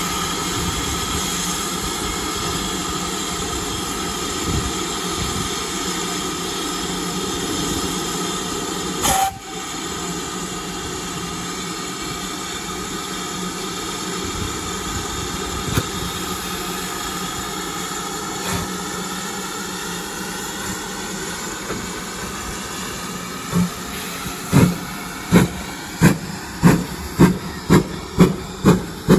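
GWR Large Prairie 2-6-2 tank locomotive 4144 standing with a loud, steady hiss of steam, which drops suddenly about nine seconds in. Near the end the engine starts away: its exhaust beats begin slowly and quicken to about two a second.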